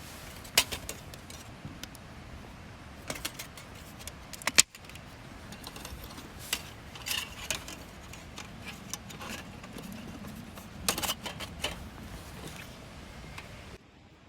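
Scattered light clicks and clatters of small hard objects being handled, over a steady background hiss, with a cluster of rapid clicks about eleven seconds in.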